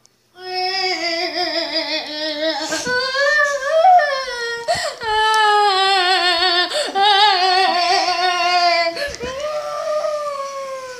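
A child singing in a high voice, holding long, wavering notes over several phrases.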